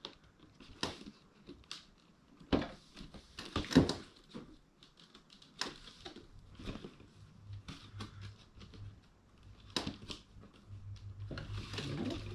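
Cardboard box being handled and opened by hand: scattered taps, clicks and scrapes of card at irregular intervals, the sharpest a little before four seconds in, turning to a denser rustling scrape near the end.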